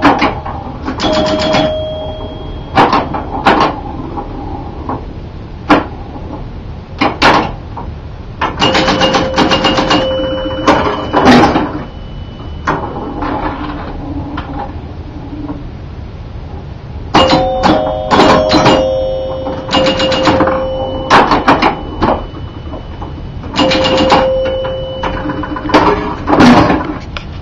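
1977 Gottlieb Jungle Queen electromechanical pinball machine in play: runs of rapid clicks and knocks from its relays, score reels and playfield coils, with its scoring chimes ringing out briefly over several of the runs.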